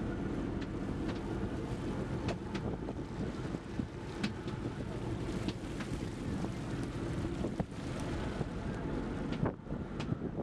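Steady low rumble of a fishing boat under way, its engine running, with wind buffeting the microphone. A scattering of short sharp clicks and knocks runs through it.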